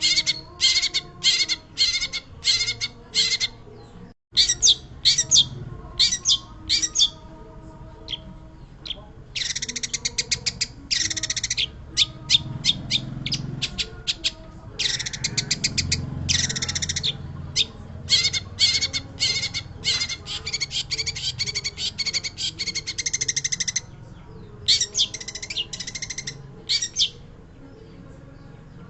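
Long-tailed shrike in full song: strings of sharp, harsh chattering notes and long, fast rattling trills, broken by short pauses, over a faint low background hum.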